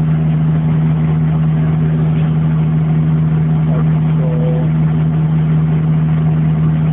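Steady low mechanical hum of a running machine, unchanging in pitch and level.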